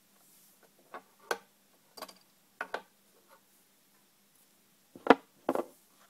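Scattered light clicks and knocks of hands working on a netbook's case and parts during a RAM swap, with the loudest pair of knocks near the end.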